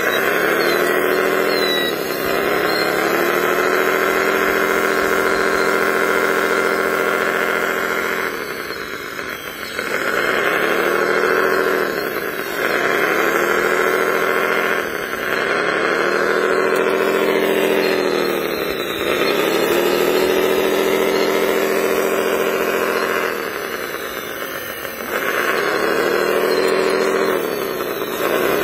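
Radio-controlled wheel loader running: a steady mechanical drone whose pitch sinks and recovers about six times, with a few softer stretches, as the loader moves and works its bucket.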